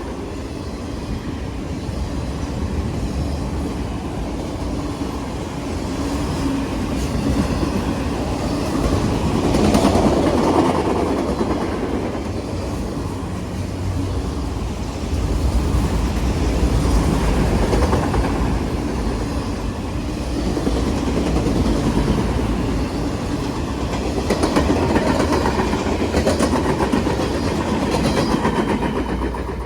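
Train rail cars rolling past, wheels clicking over rail joints over a continuous rumble that swells and eases in waves.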